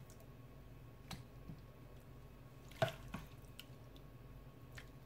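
Cooked vegetables being spooned onto tomato sauce in a glass baking dish: a few faint, soft wet plops and light clicks of the spoon, the clearest a little under three seconds in.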